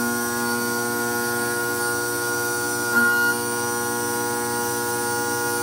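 DIY CNC milling machine running with a steady multi-tone whine as a small end mill cuts teeth into a steel bevel helical gear blank held in the rotary fourth axis. A brief louder, higher note comes about three seconds in.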